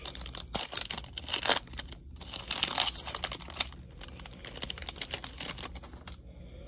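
Wrapper of a Topps 2020 Series 1 baseball card pack being torn open and crinkled by hand, a run of irregular crackling and tearing noises.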